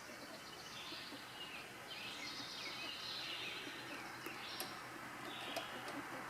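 Faint, high-pitched bird chirps repeating about once a second, with a few sharp clicks partway through.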